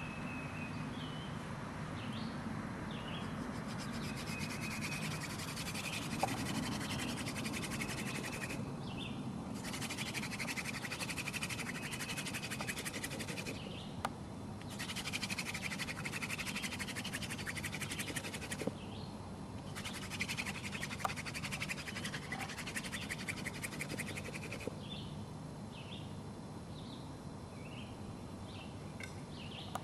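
Wooden hand-drill spindle spun between the palms against a wooden fireboard, a dense scratchy grinding of wood on wood that comes in runs of several seconds with short breaks as the hands go back to the top of the spindle, then stops a few seconds before the end. The friction is building a smouldering coal in the fireboard notch. Birds chirp faintly around it.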